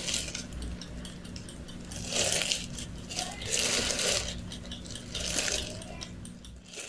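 A teaspoon scooping ground paprika from its container and sprinkling it onto breadcrumbs: three short rustling scrapes, over a steady low hum.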